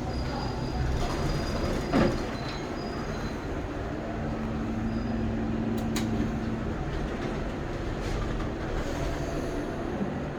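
Steady low rumble of boiler-room machinery, with a loud knock about two seconds in, a short click near the middle, and a steady hum that comes in for a few seconds.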